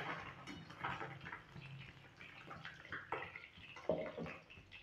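Small fish in hot oil in an iron kadhai, sizzling and crackling faintly. A metal ladle scrapes against the pan about three and four seconds in as the fried fish are scooped out.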